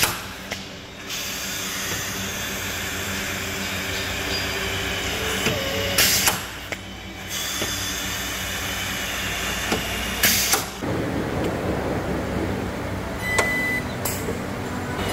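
Pneumatic air drill running in four short bursts of about half a second each against the steel body panel, near the start and at about 6, 10 and 14 seconds, over a steady hiss of workshop noise.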